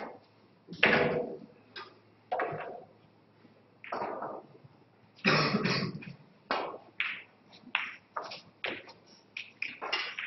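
A sharp knock, then several coughs and throat-clearings in the room. From about halfway, a run of short sharp clicks as a snooker shot is played: the cue tip striking the cue ball and the balls knocking together.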